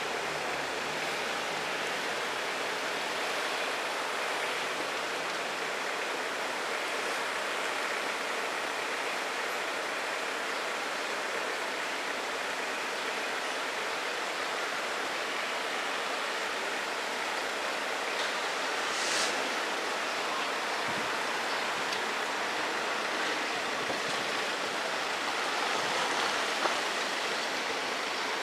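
Steady, even outdoor hiss with no distinct rhythm or tone, a brief high hiss about 19 seconds in, and a single small click near the end.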